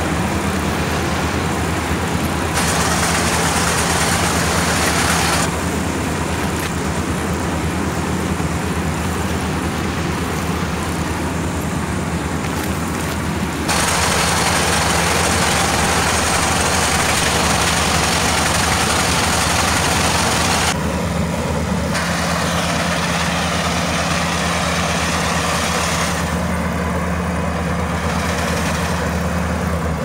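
Kubota combine harvester running while it cuts and threshes rice: a steady diesel engine drone with a hiss of threshing and cutting noise over it, louder in some stretches than others.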